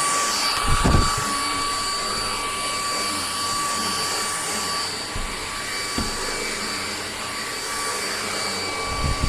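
Oraimo cordless stick vacuum's brushless motor running steadily: a high, even whine over rushing air, with a few brief low knocks.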